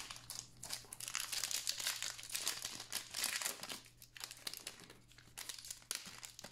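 Foil wrapper of a Panini NBA Hoops trading-card pack crinkling and tearing as it is ripped open and peeled back. The crackling is dense for about the first four seconds, then comes in a few shorter crinkles.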